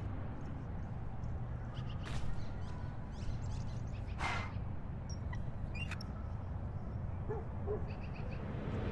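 Intro sound effects: a steady low rumble with two whooshes, about two and four seconds in, and a few faint short chirps and calls over it.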